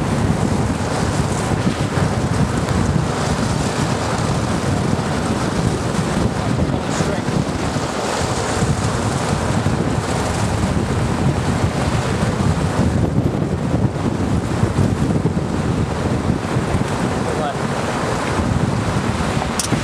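Steady, heavy wind noise buffeting the microphone, mixed with the road noise of a car driving on a wet road.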